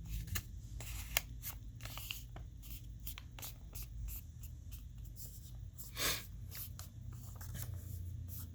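A sheet of origami paper being folded in half and creased: a run of short crinkles and rustles, with a louder brushing swipe about six seconds in, over a low steady hum.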